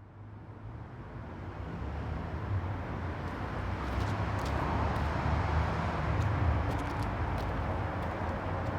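Steady road-traffic ambience: a low rumble under a wash of noise, fading in from silence over the first few seconds.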